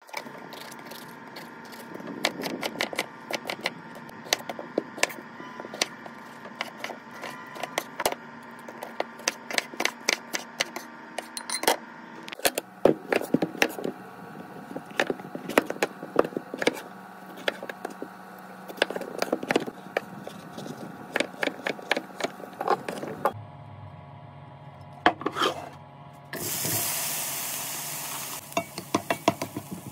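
Knife chopping vegetables on a wooden cutting board, many quick uneven strikes. About 26 seconds in, a loud sizzle for about two seconds as the chopped vegetables hit a hot frying pan, followed by a few knocks.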